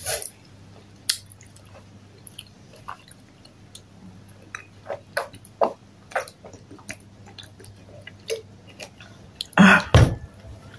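Close-up eating sounds: chewing with many small, sharp wet mouth clicks, and sips of water from a plastic bottle about halfway through. A louder thump comes near the end.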